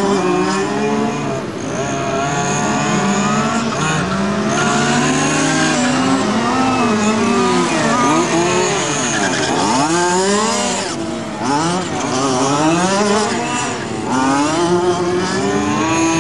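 Several radio-controlled model cars' small two-stroke engines racing, their pitches rising and falling and overlapping as they speed up and slow down through the track.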